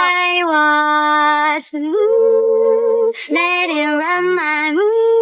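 A high voice singing long held notes, stepping up and down between pitches, with two short breaks about 1.7 and 3.1 seconds in.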